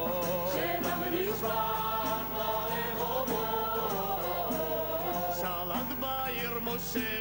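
Several voices singing together in a chant-like song, with the beats of hand-held frame drums.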